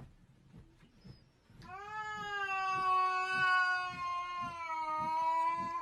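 A cat giving one long, drawn-out yowl of about four seconds, starting about a second and a half in.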